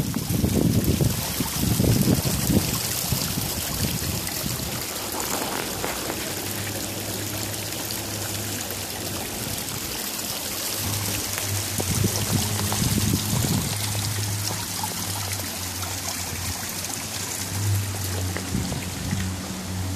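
Water pouring and splashing down an artificial rock waterfall, a steady rushing hiss, with low rumbles in the first few seconds.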